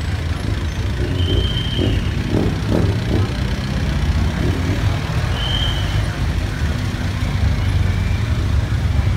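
Street traffic noise: a steady low engine rumble from motor vehicles such as tuk-tuks and motorcycles, with faint crowd voices and two brief high-pitched tones, about a second and a half in and again about five and a half seconds in.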